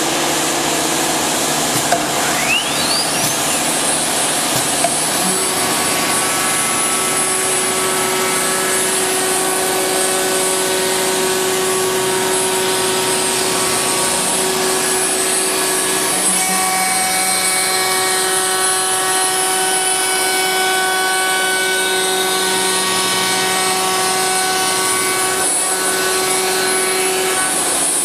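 HG-1530 automatic tool-change CNC router cutting a board, its spindle running with a steady, noisy machine sound and several held tones. A high spindle whine rises in pitch about two seconds in and holds steady.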